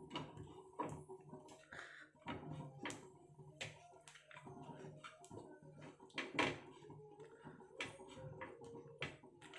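Faint, scattered light clicks and taps from handling bread and utensils at a tawa on the stove, the loudest tap about six and a half seconds in, over a faint steady low hum.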